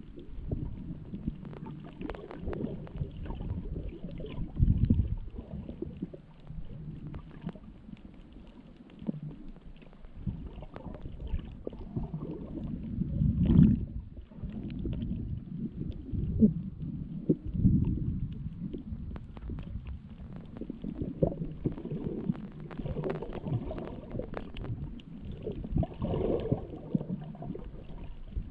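Muffled underwater sound picked up by a submerged camera: a low rumbling and gurgling of moving water, with scattered faint clicks. It swells louder about five seconds in and again around thirteen and seventeen seconds in.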